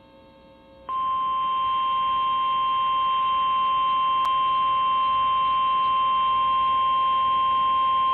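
NOAA Weather Radio 1050 Hz warning alarm tone: a loud, steady single-pitch tone that comes on about a second in and holds. It is the alert that a warning broadcast is about to follow. Before it there is a faint steady hum from the receiver.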